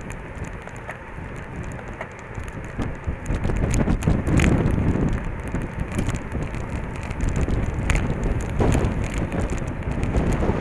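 Wind rushing over the microphone of a camera on a road bicycle riding in a peloton, with tyre and road noise and scattered sharp clicks and rattles. The wind swells louder about four seconds in and again near nine seconds.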